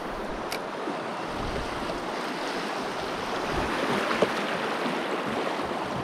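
River current rushing steadily around a drifting kayak, with a light tap about four seconds in.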